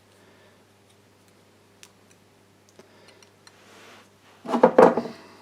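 Faint clicks of a copper pipe and brass compression fitting being handled, followed about four and a half seconds in by a louder cluster of metal clinks.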